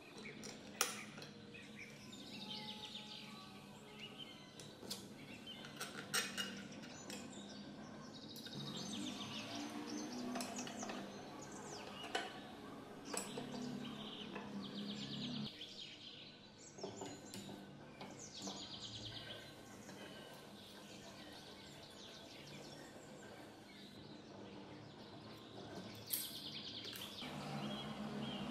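Scattered light metal clicks and knocks as an electric water pump's motor housing, end cap and tie rods are handled and fitted together, with birds chirping in short trills in the background.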